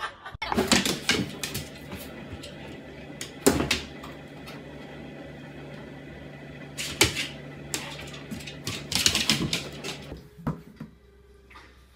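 Cardboard box knocked and scraped by a pet moving in and around it: irregular thuds and rustles, in small clusters, over a steady low hum.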